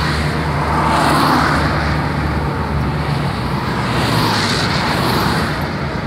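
Steady road noise of a car driving, heard from the moving car: a low engine and tyre hum under a rushing noise. The rushing swells about a second in and again around four to five seconds in.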